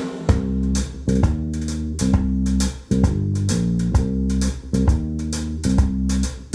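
Instrumental break of a blues-rock song: a bass line stepping between notes and guitar over a steady drum beat.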